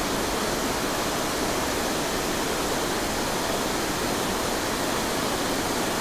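Steady rush of creek water spilling over a low dam, an even roar with no breaks.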